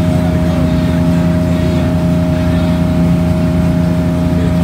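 Excursion boat's engine running steadily under way, a constant drone with a steady hum over rushing water and wind noise.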